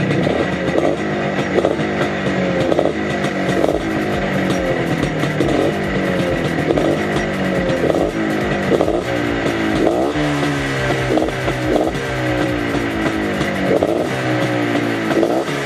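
Minsk 125 two-stroke single-cylinder motorcycle engine, fitted with a reed valve and an enlarged carburettor jet, being revved in quick repeated throttle blips. Music plays underneath.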